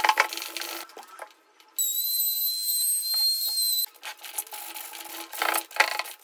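Rough rubbing and scraping strokes on wood, like filing or sanding. In the middle they give way to a steady high-pitched whine lasting about two seconds, then start again.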